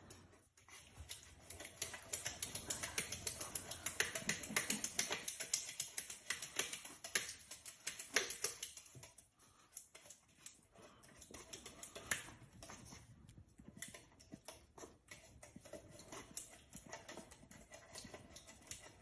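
Pomsky puppy lapping and splashing water in its water bowl: a fast run of small wet clicks, busiest in the first half and thinning out later.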